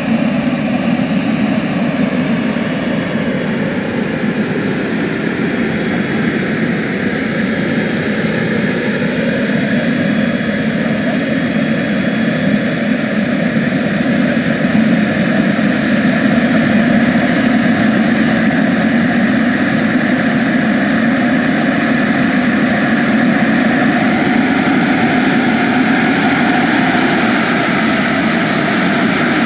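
JetCat PHT3-XL model turbine of a radio-controlled Bell 430 helicopter running on the ground with the rotor turning: a steady loud jet hiss and rumble topped by a thin high whine. The whine sags slightly at first, then climbs steadily in pitch through the second half as the turbine speeds up.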